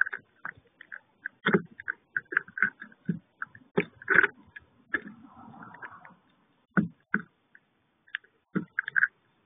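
Irregular clicks and taps of bramblings pecking at and cracking sunflower seeds on a wooden feeder tray.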